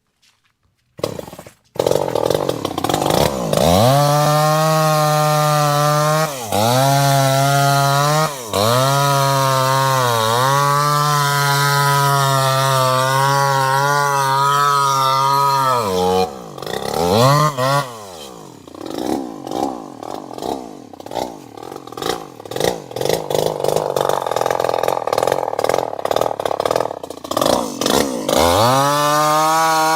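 Chainsaw engine that cuts in after near silence about a second and a half in, revs up and runs at high speed with a few short dips. It then falls to a rough, uneven lower speed for about ten seconds and revs up again near the end.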